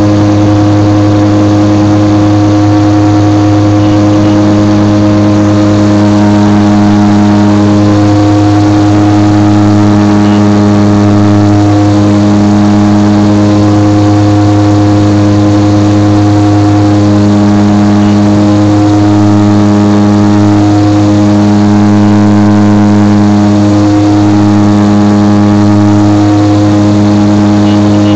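Fairchild Metroliner's Garrett TPE331 turboprop engine and propeller droning steadily in descent, heard from inside the cabin beside the propeller, with a slow throb that swells and fades every second or two.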